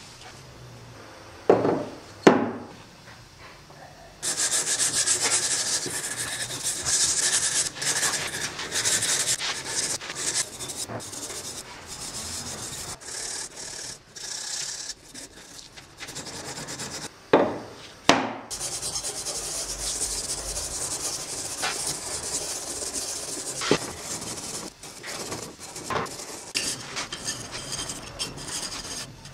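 A wire brush and steel wool scrubbing the wet, rusty cast-iron parts of an old clothes iron: a scratchy rasp of quick, repeated strokes. It starts about four seconds in and carries on to the end. Two sharp knocks come near the start and two more a little past halfway.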